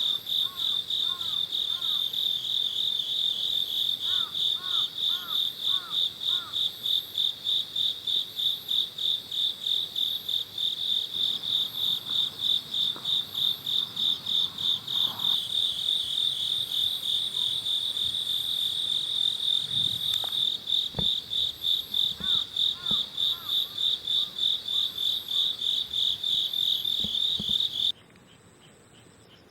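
An insect calling in a loud, high, fast and even pulsing trill that holds steady, then cuts off abruptly near the end. A few faint, short chirping calls sound underneath.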